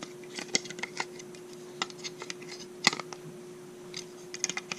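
Plastic GoPro mount parts being handled and fitted together: scattered small clicks and taps, with one louder click about three seconds in. A steady low hum runs underneath.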